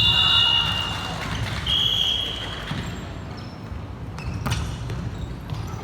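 Volleyball match in a gym hall: a steady whistle tone fades in the first second and a short whistle blast follows about two seconds in, then a couple of sharp ball hits near the end, over low background voices and hall noise.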